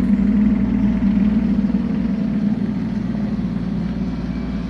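Mini excavator's engine running steadily at a low, even pitch.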